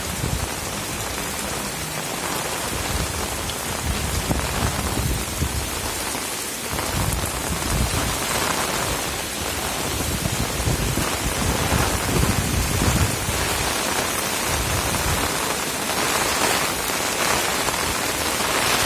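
Heavy rain pouring steadily, with strong wind gusting and rumbling in irregular surges.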